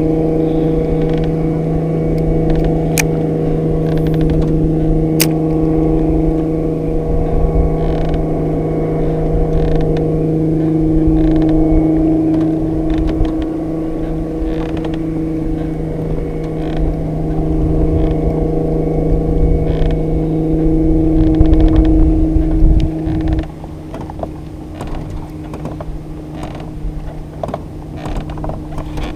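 Electric Minn Kota PowerDrive bow-mount trolling motor running with a steady hum of several even tones over a low rumble. The sound drops to a much lower level about 23 seconds in.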